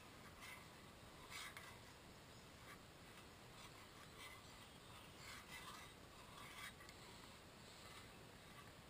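Faint, irregular scrapes of a spoon stirring pasta in a small metal pot.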